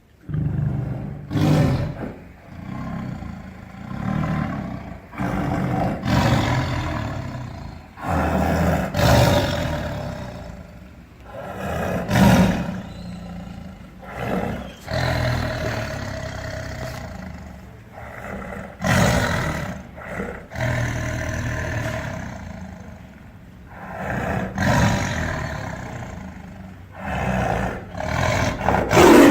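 Tiger growling with a rasping, snore-like sound, over and over, with a louder growl every few seconds.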